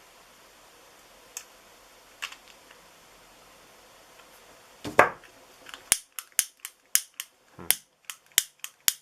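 A few handling clicks and a knock about five seconds in, then, starting about six seconds in, a run of about ten sharp clicks as a long stove-and-barbecue gas lighter's igniter is pressed over and over to light it after refilling.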